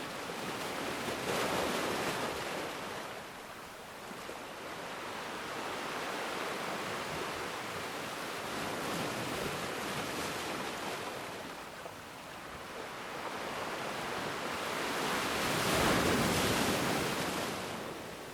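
Ocean surf breaking and washing up a black sand beach as a steady rushing noise. It swells with a wave about a second in, again through the middle, and loudest near the end before easing off.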